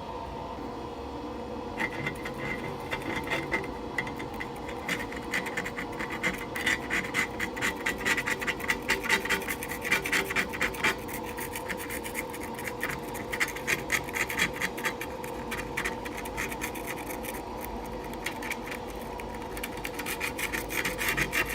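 Razor blade scraping old cured silicone sealant off aquarium glass in quick repeated strokes, starting about two seconds in, to clear the glass fully so new sealant will bond. A faint steady hum runs underneath.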